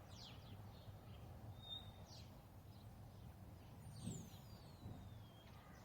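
Near silence: quiet room tone, with a few faint high chirps and one thin whistle that falls slowly in pitch, a little past the middle.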